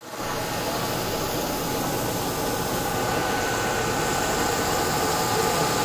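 Electric motors of a cotton-seed processing tank machine running steadily: a constant machine hum with a few steady tones over a hiss, unchanging throughout.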